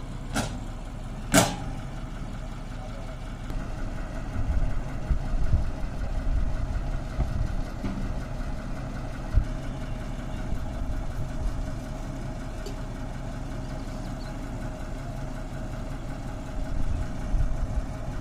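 Diesel engine of a truck-mounted borewell drilling rig idling steadily. Two sharp knocks about a second apart near the start, and scattered low thumps later.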